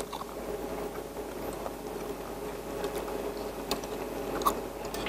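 Octopus and tripe hotpot (nakgop jeongol) simmering in its pot at the table, a low steady bubbling with a few light clicks of utensils.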